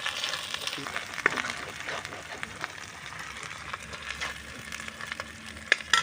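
Cumin and black pepper paste frying in hot oil in a kadai, with a steady sizzle and scattered crackles, a few sharper pops near the end.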